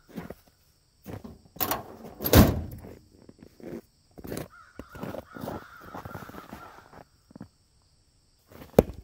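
A bird calling in a string of short calls, with one loud thump about two and a half seconds in and a sharp click near the end.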